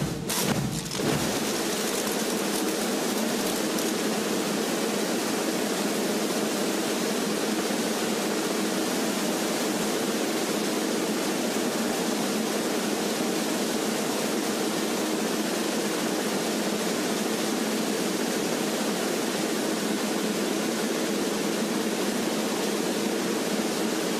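Steady, even hiss like static or rushing water, unchanging in level, following drumming music that stops about a second in.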